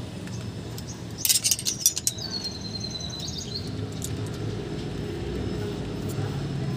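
Metal hand tools, a ring wrench and a feeler gauge, clinking against each other and the rocker-arm gear during a valve clearance adjustment. There is a quick run of sharp clinks about a second in, then a thin high ringing tone for about a second and a half, over a steady low rumble.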